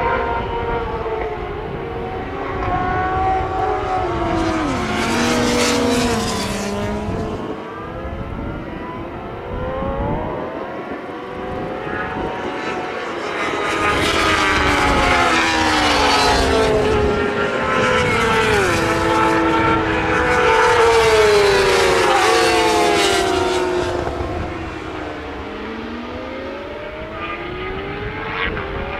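Racing motorcycles (superbikes and supersport 600s) passing at high revs, several in quick succession. Their engine notes climb and fall with gear changes and as they go by. The loudest passes come about halfway through and run for several seconds.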